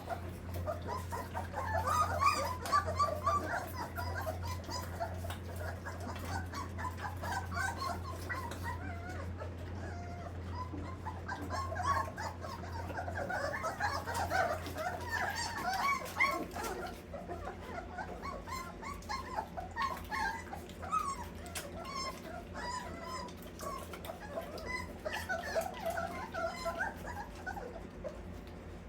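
A litter of Old English Sheepdog puppies whimpering and squeaking in many short, high calls that overlap one another throughout.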